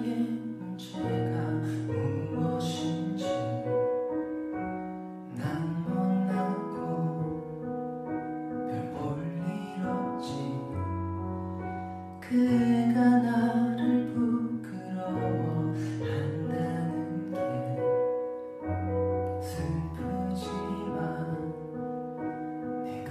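Slow piano ballad accompaniment: held chords over low bass notes that change every couple of seconds, with a louder chord about halfway through.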